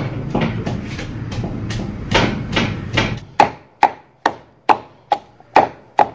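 Wooden pestle pounding garlic and ginger in a wooden mortar, about two dull knocks a second in a steady rhythm, crushing them to a paste. A low background rumble under the first half stops about three seconds in.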